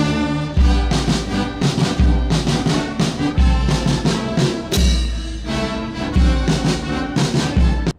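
Ceremonial brass band playing slow, stately music, with a deep drum stroke about every second and a half under sustained brass chords. The music cuts off suddenly at the end.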